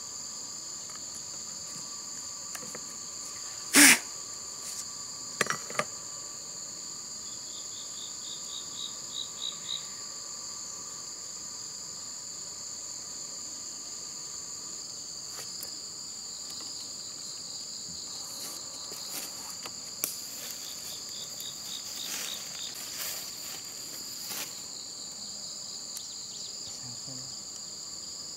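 Steady high-pitched drone of chirring insects, holding two even pitches throughout. A few sharp clicks and knocks stand out over it, the loudest about four seconds in, and a short run of rapid ticks comes around eight to ten seconds in.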